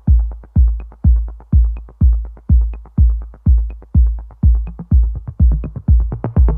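Electronic dance music with a steady kick drum about twice a second and a light tick on every other beat; a bassline comes in near the end.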